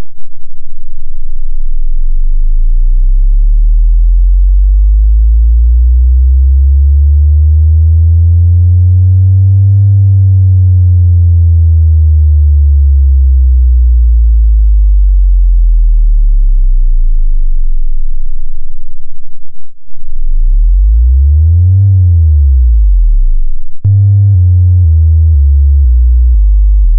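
Bass test tone boosted +9 dB: a very deep sine tone with a buzzy stack of overtones slides slowly up and back down over about eighteen seconds, pulsing about once a second near its peak. A quicker rise and fall follows, and for the last few seconds it becomes a run of stepped low bass notes changing about twice a second.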